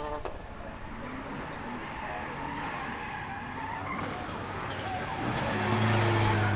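Rally car engine on a run: a high revving note cuts off right at the start, then engine and tyre noise, and a steady low engine drone comes in near the end as the loudest sound.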